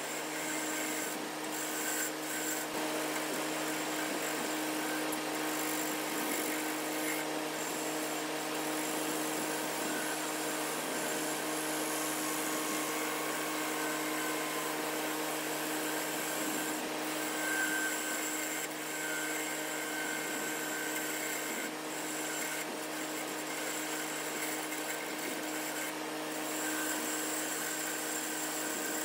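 Wood lathe running with a steady motor hum while a turning tool cuts a spinning oak blank, giving a continuous rough scraping noise as shavings come off.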